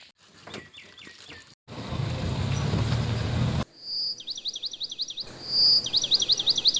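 A songbird singing twice in the second half: a clear high whistle, then a fast run of sharply falling notes. Before it comes about two seconds of loud low rumbling noise that starts and stops abruptly.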